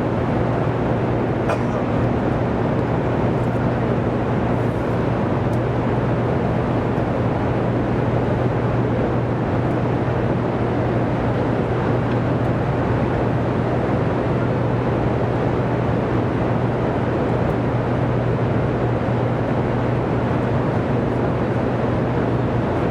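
Steady roar and low electrical hum of the Hoover Dam hydroelectric power plant's generator hall, with generating units running.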